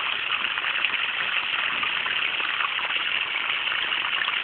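Water from a garden hose running steadily past a shovel into a flooded taro patch, a continuous even splashing and gushing.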